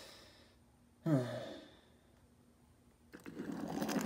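A person's sigh about a second in, a short breath before it and a falling voiced exhale. From about three seconds in, a rough scraping rumble as a hand pushes a diecast toy car across the wooden floor.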